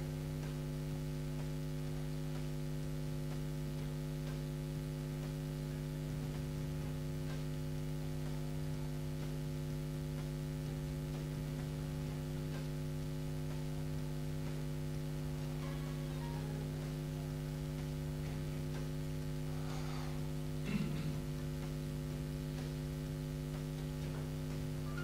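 Steady electrical mains hum: a buzz of several evenly spaced tones that holds level, with one brief faint sound about 21 seconds in.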